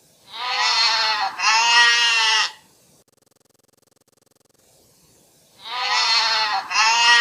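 Recorded goat bleating: a two-part bleat with a wavering, quavering pitch, played twice about five seconds apart.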